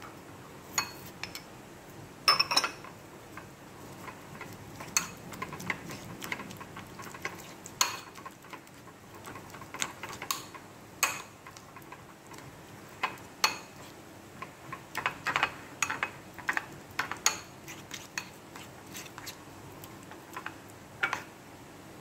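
A metal spoon and small ceramic bowls clinking and knocking in short, irregular strikes, with scraping between them, as sauce ingredients are mixed and spooned between bowls.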